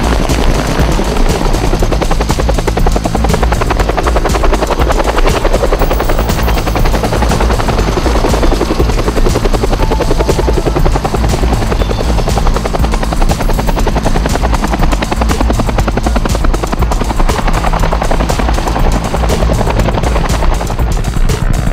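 Bell UH-1H Iroquois helicopter flying low and close, the steady rapid beating of its two-bladed main rotor over the run of its turbine engine.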